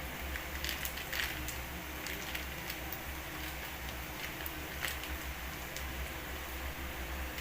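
Food frying in hot oil in a pan: a steady sizzle with scattered pops and crackles.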